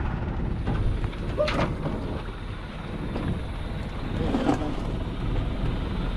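An engine running steadily with a low rumble, with a couple of brief sharper sounds over it, about one and a half and four and a half seconds in.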